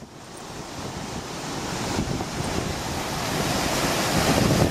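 Flash-flood water rushing and churning over sandstone rocks and ledges, a dense, steady roar that grows steadily louder over the first few seconds.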